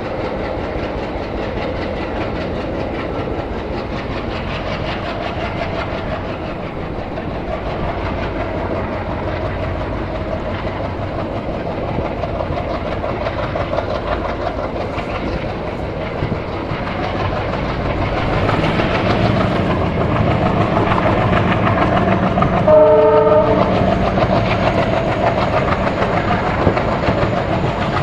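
Express passenger train running on the track, heard from aboard: a steady rumble with wheels clacking over rail joints, growing louder about two-thirds of the way through. A short horn blast sounds near the end.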